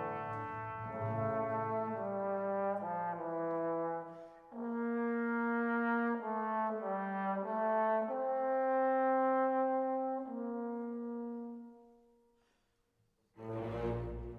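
Brass instruments playing a slow melody of long held notes in phrases, fading out near the end. Just before the end a different, fuller piece of music begins.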